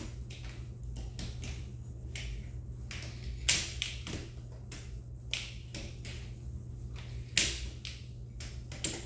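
A hard-shell carry-on suitcase being handled by its telescoping handle: scattered light clicks and taps, with a sharp click about three and a half seconds in and another about seven and a half seconds in, over a steady low hum.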